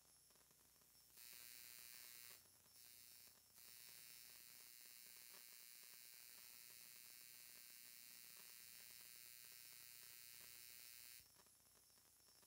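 Near silence with a faint, steady high-pitched hiss that switches on about a second in, drops out briefly twice, and cuts off near the end.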